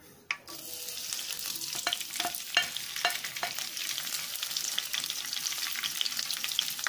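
Curry leaves hitting hot coconut oil in a kadai, sizzling with scattered crackles and pops. The sizzle starts about half a second in and then holds steady.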